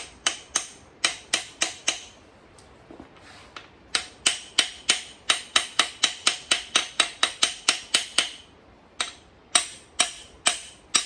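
Hammer taps on metal, driving the press-fit lower timing gear onto an LS1 crankshaft snout. Light, ringing taps come in a run, pause, then a faster run of about four taps a second, then a few more.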